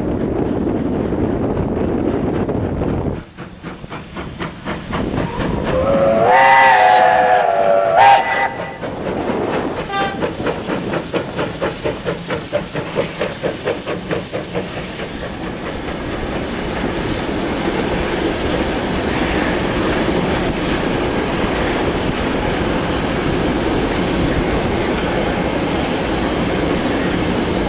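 Steam locomotive hauling an excursion train past. Its whistle sounds once for about two seconds, around six seconds in. Then comes a fast, even beat with the steady rumble of the train going by.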